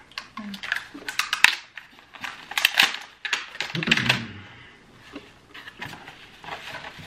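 Cardboard box and bubble-wrap packaging being handled as elastic bands are slid off and the box is opened: bursts of sharp crackles and rustles.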